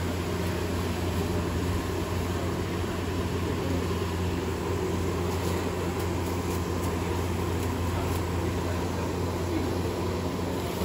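Steady low hum with an even hiss over it: a gas burner running under a large griddle of steaming onions and tomatoes at a street food stall.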